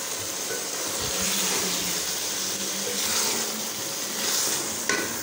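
A ladle scooping curry out of an aluminium pot, with soft scrapes and a few knocks about a second in. Under it runs a steady rushing hiss that swells a few times.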